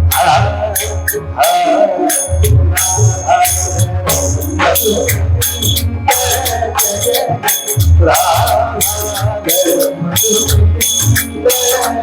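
Devotional bhajan: a voice singing over fast jingling hand percussion and a low drum beat.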